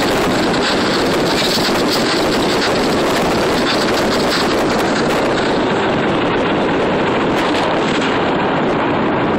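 Steady rush of wind on the microphone mixed with the road noise of a car moving along pavement.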